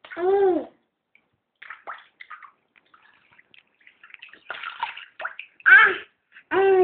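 A young child in a bath making three short, high-pitched vocal sounds, near the start, about six seconds in and at the end, with water splashing between them.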